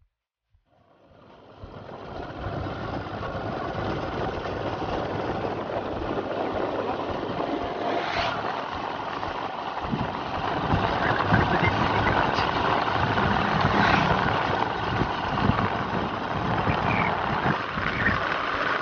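Motorcycle running along at a steady cruise, with wind rushing over the microphone; the sound fades in about a second in.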